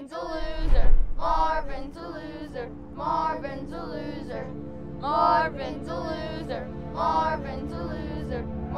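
Background music with singing voices: a vocal phrase comes back about every two seconds over a steady low drone. A loud low boom sounds in the first second.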